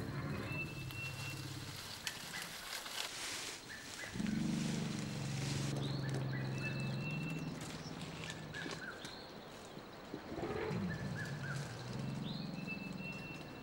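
Forest ambience: a bird repeats a short whistled phrase three times, over a low rumble that comes and goes. There are crackles of vegetation about two to four seconds in.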